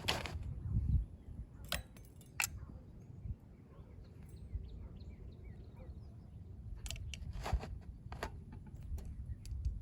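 A few sharp clicks and knocks, in two clusters, over a low outdoor rumble, with faint bird chirps in between.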